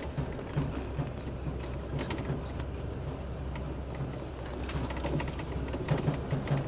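Heavy truck engine running with a steady low drone, with scattered short knocks and rattles.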